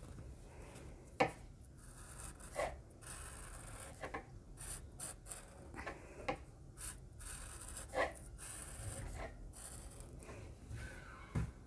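Faint scratching of a pen drawing lines on a paper pattern, with a few short, sharper strokes and the paper rustling as it is shifted by hand.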